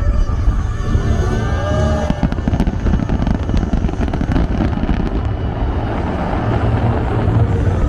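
Fireworks bursting in a dense barrage, many bangs and crackles a second over a low rumble. Show music fades out in the first couple of seconds.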